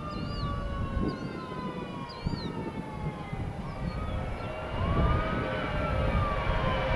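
Twin-engine jet airliner taking off, its engines at takeoff power with whining tones that slowly slide in pitch over a rumble, growing louder as it lifts off near the end.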